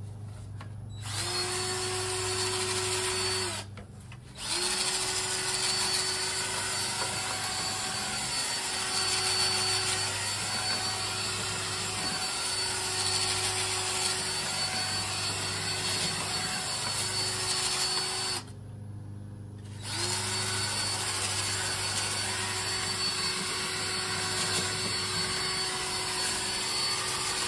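Cordless drill running a dryer-vent cleaning brush on flexible rods inside the dryer duct, the brush scrubbing lint loose from the duct's edge. The motor runs steadily in three long runs, stopping briefly twice: once a few seconds in and again about two-thirds of the way through.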